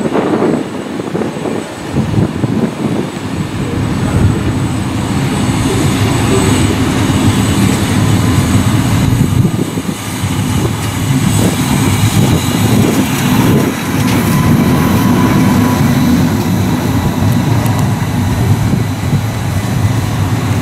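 Class 243 electric locomotive approaching and drawing past: a steady rumble of wheels and running gear that builds over the first few seconds and then stays loud.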